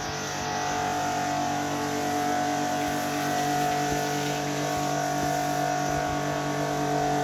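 Electric pressure washer running steadily at constant pitch, its motor and pump droning under the hiss of the water jet spraying the motorcycle.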